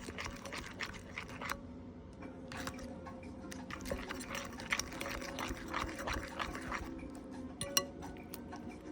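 Slime made from soft soap, water and baking soda being stirred with a comb: irregular wet squelching and small sticky clicks as the mixture starts to thicken.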